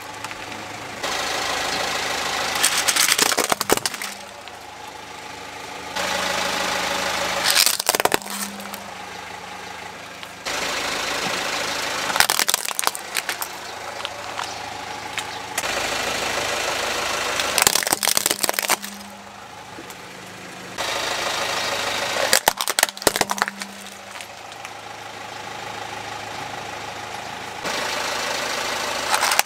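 Car engine running as the car rolls slowly over plastic toys on concrete. The tyre crushes each toy with a burst of sharp cracks and crunches, about five times, one every few seconds.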